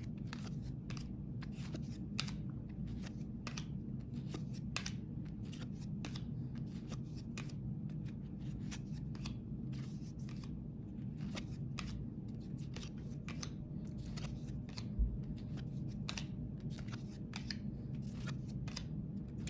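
Trading cards being flipped and slid off a stack one after another, each giving a short papery snap or rustle, about two a second, over a low steady hum. One soft thump comes near the end.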